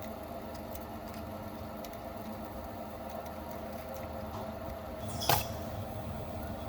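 A small electric motor running at a steady speed with an even hum, and one sharp click about five seconds in.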